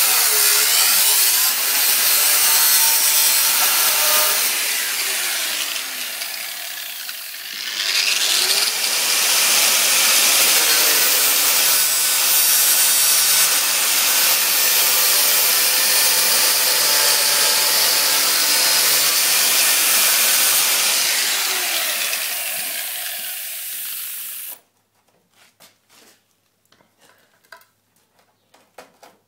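Handheld angle grinder grinding rust off a camper van's metal body panel at the wheel arch. The dense grinding noise eases for about a second around six seconds in, then resumes, and cuts off sharply near the end, leaving only a few faint clicks of hand handling.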